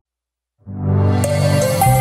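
About half a second of silence, then a short intro music sting fades in, with held notes over a low bass and a bright high note near the end.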